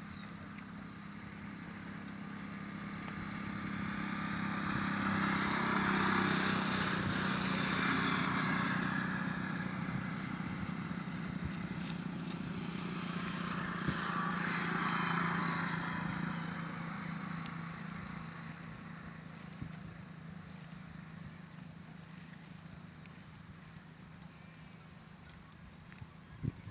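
Two road vehicles pass by one after the other, each swelling up and then fading away. The first is loudest about six seconds in and the second just past halfway, over a steady low hum.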